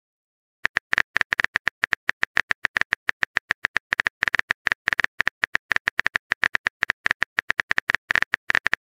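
Keyboard-typing sound effect of a texting-story app: a fast, even run of short clicks, several a second, as a chat message is typed letter by letter. The clicks start about half a second in.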